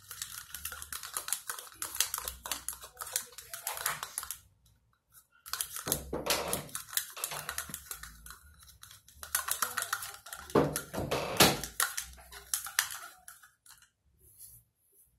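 A fork stirring dish soap in a container, clicking and tapping rapidly against the container, with two brief pauses: about four seconds in and near the end.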